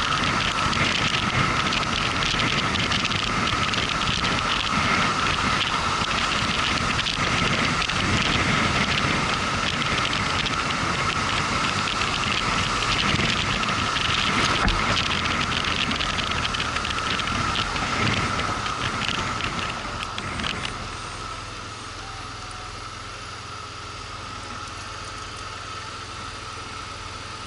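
Motorcycle riding on the road: engine running under wind and road noise. About three quarters of the way through it drops to a quieter, steadier engine hum, as the bike slows to idle.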